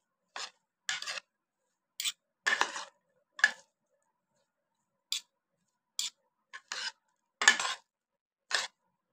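Metal spoons clinking and scraping against a plate as sliced raw onion rings are tossed with spices, about a dozen short, uneven clinks with a brief pause in the middle.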